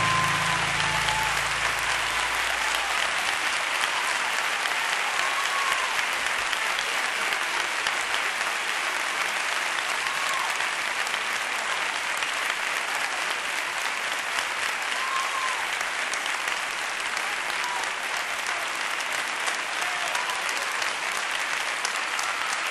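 Sustained applause from a large audience at the end of a song. The last note of the music dies away in the first few seconds.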